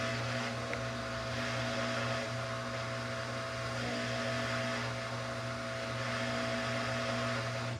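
Samsung WF42H5000AW front-load washing machine running: a steady electrical hum under an even whooshing hiss, cutting off suddenly at the end.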